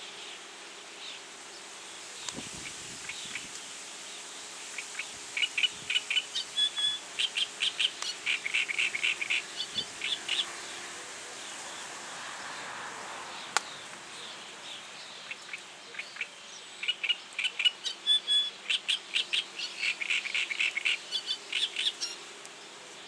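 Reed warbler singing two bursts of fast, chattering song made of repeated high notes, several to the second, with a pause between them. A steady low hum runs underneath.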